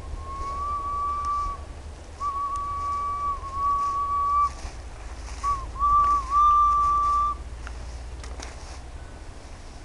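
Whistling: three long, nearly level notes at about the same pitch, each held for one and a half to two seconds, with small dips between. A low steady hum runs underneath.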